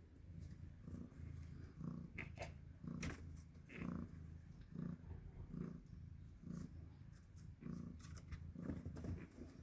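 A cat purring, the low rumble swelling and fading in a slow, even rhythm with each breath, with a few light clicks over it.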